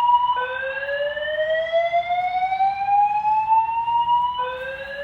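Fire alarm evacuation tone from a building's alarm speaker: a slowly rising sweep from low to high pitch lasting about four seconds, which drops back and starts again about a third of a second in and again near the end.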